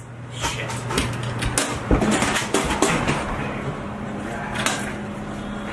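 Scuffle: irregular knocks, clatters and rustling over a steady low hum.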